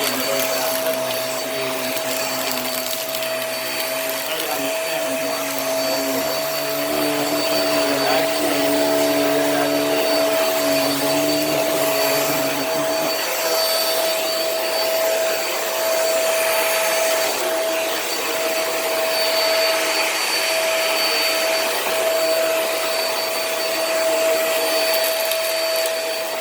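Hoover React Professional Pet vacuum running over carpet, a steady motor whine over airflow noise. A lower hum drops away about halfway through while the whine carries on.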